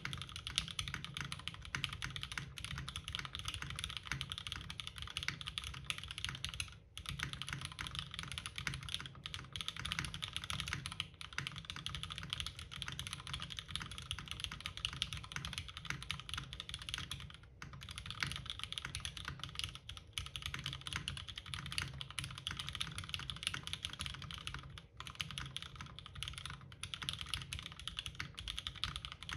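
Continuous fast typing on a custom mechanical keyboard with Cherry MX Black linear switches on an aluminium plate and GMK keycaps, the keystrokes clacking densely. The typing pauses briefly three times, about 7, 17 and 25 seconds in.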